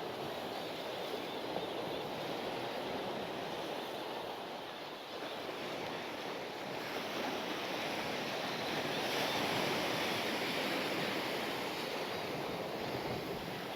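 Waves washing on a beach: a steady rush of surf that grows a little louder about eight seconds in.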